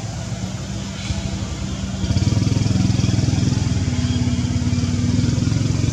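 An engine running steadily with a low, even pulse, growing louder about two seconds in.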